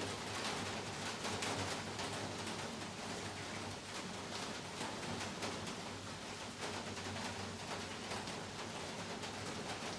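Heavy rain falling steadily: a dense, even hiss dotted with many sharp patters of individual drops.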